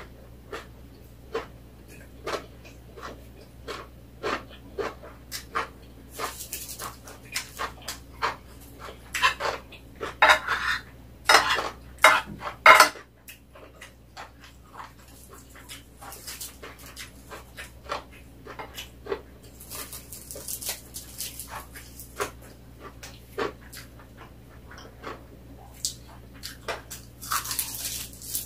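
Close-up eating sounds: chewing and lip-smacking in a steady run of small wet clicks, with a metal spoon clinking on a china plate. Louder, noisier bursts come about ten to thirteen seconds in.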